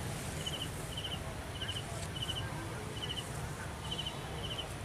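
An insect chirping: short chirps of a few quick pulses, repeated about twice a second, over a low steady background rumble.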